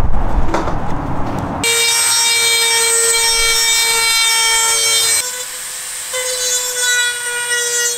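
After about a second and a half of loud rustling, a Dremel rotary tool with a sanding tip starts and runs at a steady high whine while it sands the cut plastic edge of a car bumper's grille opening. A little past halfway the whine steps slightly higher in pitch and gets quieter.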